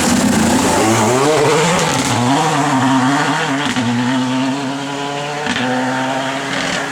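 Renault Clio R3T rally car's turbocharged four-cylinder engine accelerating hard, its pitch climbing, dropping at each gear change and climbing again, with a brief lift about five and a half seconds in.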